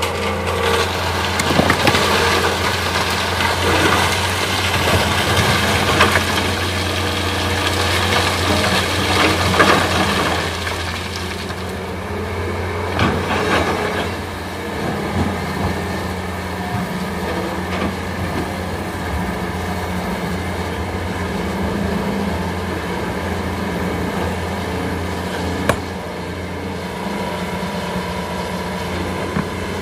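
Heavy diesel engine running steadily as an excavator loads sand and stones into a truck. Rattling and knocking of the load runs through the first twelve seconds or so, after which the engine continues more evenly with a few single knocks.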